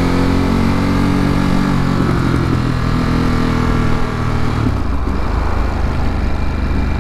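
Ducati Monster's V-twin engine running under way, heard from the rider's seat over wind and road noise. The engine note sags slightly over the first couple of seconds and changes again a little before the five-second mark, as the throttle is eased.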